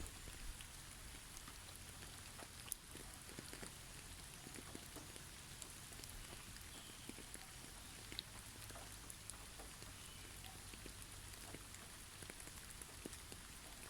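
Winter forest ambience: falling snow pattering lightly on snow-laden trees, a faint steady hiss with scattered soft ticks, and a few faint short bird chirps now and then.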